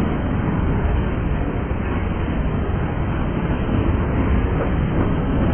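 Freight train's boxcars and covered hopper cars rolling past close by, a steady loud rumble of wheels on rail.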